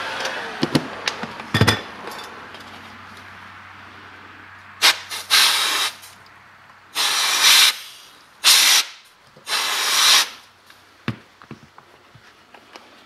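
Electric heat gun's blower hiss dying away as it is switched off and set down, with a few knocks and clicks from handling the parts. A few seconds later come four loud hissing rushes, each about a second long, and near the end a few light metallic clicks as the aluminium crankcase half is handled.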